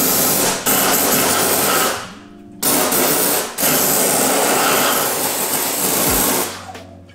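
Kärcher handheld steam cleaner blowing a jet of steam: a loud, steady hiss. It cuts out briefly a few times, longest about two seconds in, and fades away near the end.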